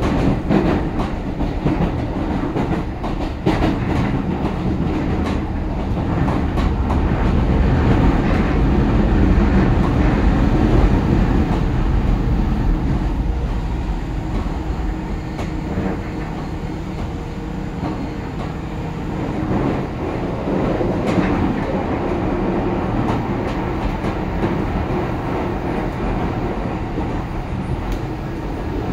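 Keio Line commuter train running, heard from inside the passenger car: a steady rumble of wheels on rail with scattered clicks from the track, swelling a little in level and then easing.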